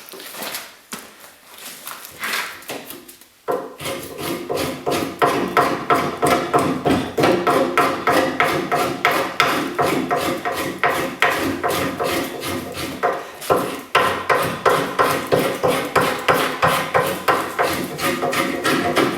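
Axe blade striking green ash wood in rapid, regular chopping cuts, about three a second, starting suddenly after a few seconds of softer scraping strokes on the wood.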